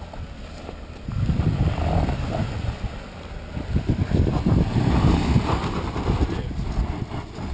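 Jeep Wrangler JK's engine working at low speed as it crawls over rocks, its rough low sound growing louder about a second in and again around the middle.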